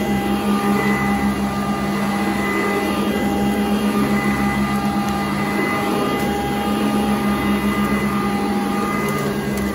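Sanitaire upright vacuum cleaner running as it is pushed back and forth over carpet: a steady motor hum with a higher whine over a rushing noise.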